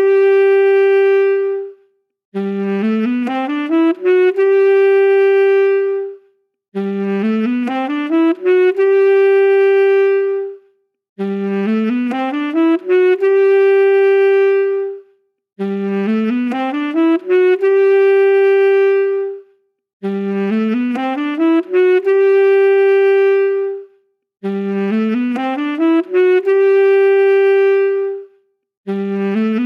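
Saxophone playing one short phrase on a loop: a quick run of rising notes that ends on a long held note, then a brief pause. The phrase repeats identically about every four and a half seconds, some seven times.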